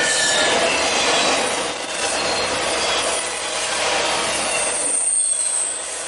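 Intermodal freight train cars rolling past at close range: a steady rush of steel wheels on the rails. Thin, high wheel squeals come briefly at the start and again, higher, about five seconds in.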